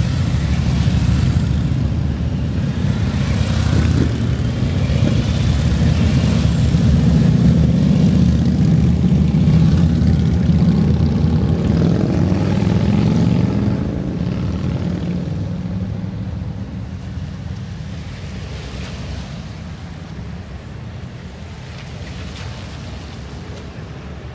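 Motorcade vehicles passing close by on a wet road: engine noise and tyre hiss on wet pavement. The sound builds to its loudest as a sheriff's patrol car goes past, then fades steadily from about halfway through.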